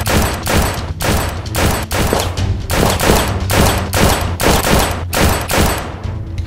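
Rapid run of gunshot sound effects, about three shots a second, over a steady low drone. The shots stop shortly before the end.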